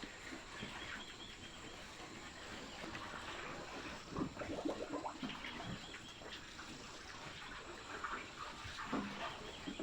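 Farm animal sounds: scattered short low noises, busiest around the middle, with a few brief high bird chirps.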